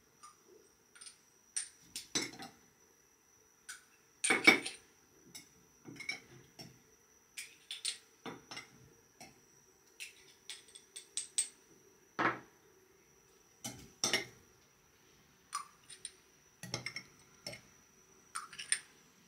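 A metal utensil clinking and tapping against small glass jars as they are filled, in irregular light clinks scattered throughout, the loudest about four and a half seconds in.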